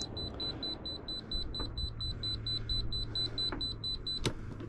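Sailboat engine instrument panel alarm beeping rapidly, about five high-pitched beeps a second, with the ignition on and the engine not running. Near the end the beeping breaks off at a sharp click as the key is turned, then resumes; the starting battery is dead.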